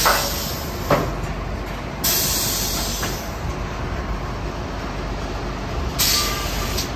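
Water well drilling rig's power unit running steadily, with bursts of hissing as the controls are worked, about two seconds in and again near the end, and a sharp knock about a second in.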